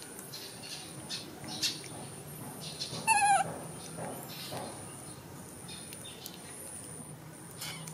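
A baby macaque gives one short, wavering squeal about three seconds in. Around it are a thin high tone that comes and goes and soft scattered rustles.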